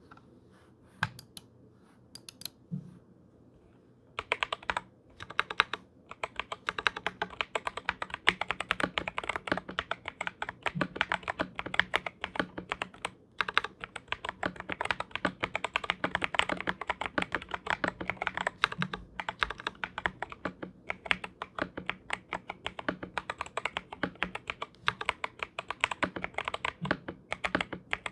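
GamaKay LK67 (TM680/GK68) 65% mechanical keyboard with lubed and filmed Kailh Box Royal switches and XDA PBT keycaps being typed on. A few separate keystrokes come first, then fast, continuous typing from about four seconds in, with one short pause about halfway through.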